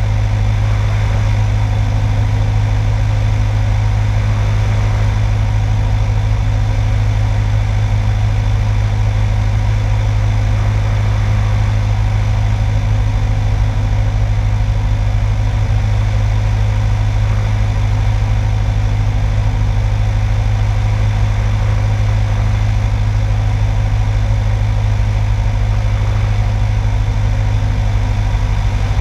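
Light single-engine airplane's piston engine and propeller droning steadily on final approach, with no change in power.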